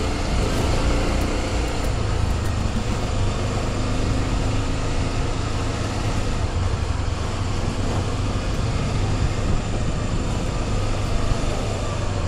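Motorcycle engine running steadily while riding, a low hum under a constant noisy rush of air and road noise.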